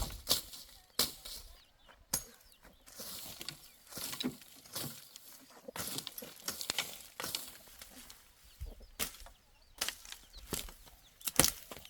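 Steel crowbar (digging bar) driven into the ground to dig a hole: repeated irregular strikes about once a second, some followed by a short scrape of metal through soil.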